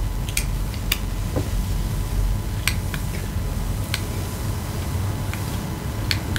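About six short, sharp clicks at uneven intervals over a steady low hum.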